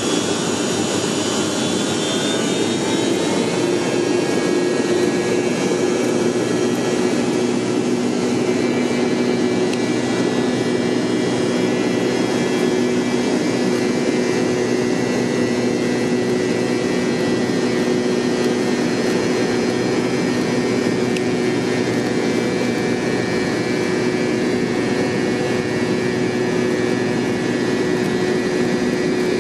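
MD-88's rear-mounted Pratt & Whitney JT8D jet engines heard from inside the cabin: a steady jet drone with a hum and a whine. A high whine falls in pitch over the first few seconds.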